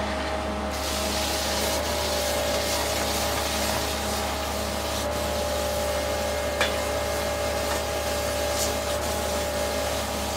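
High-pressure water spray from a pressure-washer wand hissing against the pavement over a steady machine hum. There is one brief sharp tick about six and a half seconds in.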